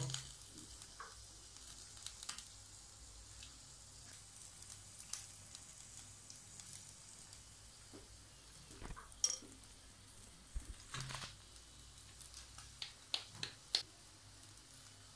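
Meat skewers and patties sizzling faintly on an electric tabletop grill, a steady hiss under a low hum. A few light clicks and knocks come through it, the sharpest about nine seconds in and several more near the end.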